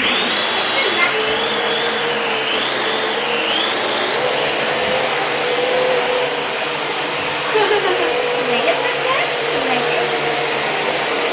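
Toy quadcopter's small electric motors and propellers whirring with a high whine that starts abruptly and wavers in pitch over the first few seconds as the throttle changes, then holds steady.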